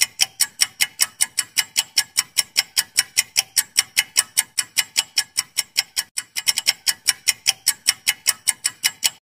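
Quiz countdown-timer sound effect: a clock ticking fast and evenly, about five ticks a second, stopping abruptly near the end.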